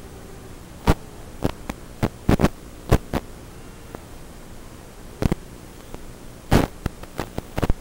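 Steady electrical hum and static from an analog FPV video receiver's recorded audio. Sharp crackling pops break in at irregular times and cluster near the end, where the video signal breaks up.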